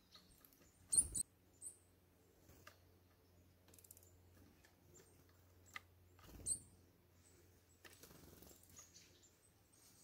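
Eurasian nuthatches and tits at a wooden bird feeder: a few short, high calls with soft taps and knocks. The loudest knocks come about a second in and again about six and a half seconds in.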